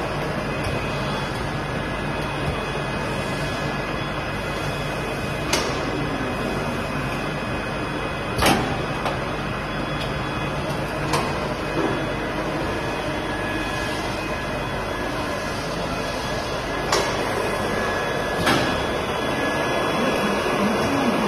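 Double-head hot filling machine and its jar conveyor running: a steady mechanical hum with several sharp clicks and knocks a few seconds apart, the loudest about eight seconds in.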